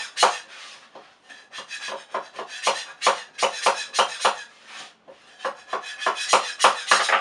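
Stiff knife blade scraping and tapping under a 3D-printed plastic part on a printer build plate, quick rasping strokes several a second with two short pauses, working loose a print that is stuck fast to the plate.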